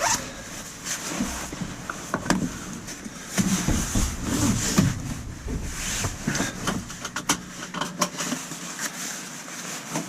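Rustling with scattered clicks and knocks as someone settles into a VW Vanagon T25/T3 seat and draws the seat belt across to try its lowered height.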